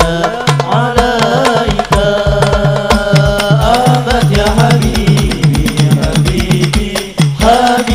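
Hadrah sholawat ensemble playing: frame drums beat a quick steady rhythm while a lead voice sings a bending melody through the PA.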